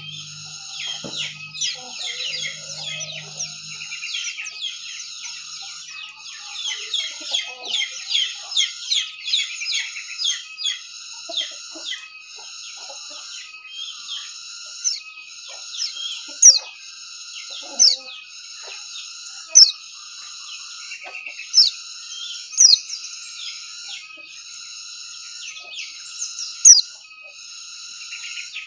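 White-eye (pleci) singing a fast, twittering song of high chirps and trills, busiest in the first half, with single sharp, loud chirps later on. A regular high pulsing runs behind it about once a second.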